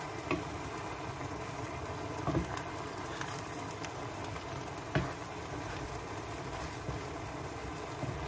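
Pancit canton noodles sizzling in a pan as they are tossed and stirred with a wooden spatula, with a steady frying hiss. The spatula knocks against the pan three times, the loudest about five seconds in.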